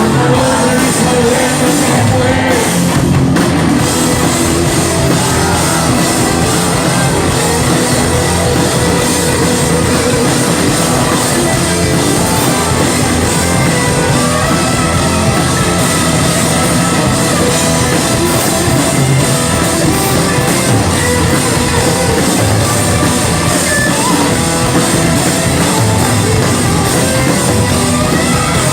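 Rock band playing a song, with drums, electric guitar and a singer's voice.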